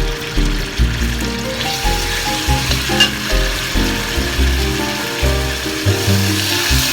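Food sizzling as it fries in a hot pan, the hiss swelling a couple of seconds in and again near the end, under background music.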